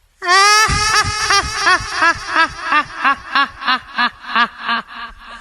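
Electronic robot sound effect. A held buzzy tone is followed by about a dozen short pitched blips, each rising and falling, about three a second, fading toward the end.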